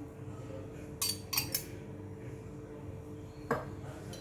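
Light metallic clinks of kitchen utensils: three close together about a second in and one more near the end, over a steady low hum.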